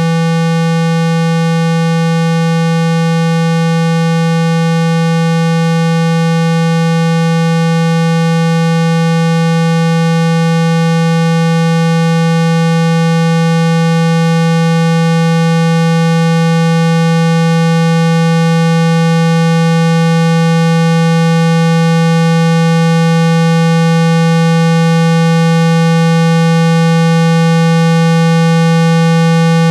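A continuous, loud 165 Hz tone with fainter higher overtones, holding one pitch without a break. It is a phone speaker-cleaning tone, played to shake dust and water out of the speaker grille.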